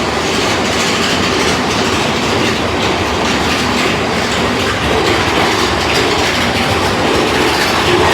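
Big Thunder Mountain Railroad mine-train roller coaster cars running along the track, a steady loud rattle and rumble of wheels on rails.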